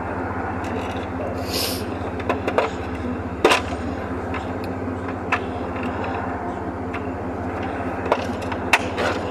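Hand tools working nuts on a truck alternator mount: irregular sharp metallic clicks and clinks, about seven of them, over a steady low hum.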